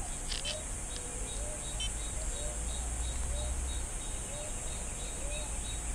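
Hunting hounds baying in the distance on a boar trail, a short rising-and-falling cry about twice a second, over a steady high insect drone.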